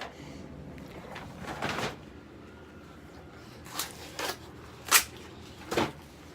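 Plastic toy packaging being handled: a handful of short rustles and knocks, about five in all, the sharpest a little past the middle.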